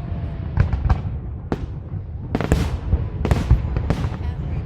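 Aerial fireworks bursting: many sharp bangs and booms in quick, irregular succession over a continuous low rumble.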